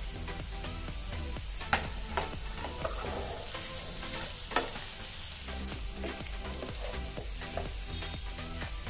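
A steel spatula stirring and breaking up mashed boiled potato in a frying pan over a light, steady sizzle of the fried onion and chilli mixture. The spatula clicks sharply against the pan twice, about two and four and a half seconds in.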